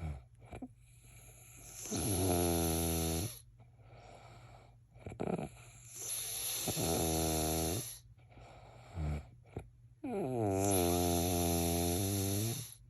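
A man snoring: three long snores, each carrying two sounds at once, a low steady buzz and a higher wavering tone above it, with short softer sounds between snores.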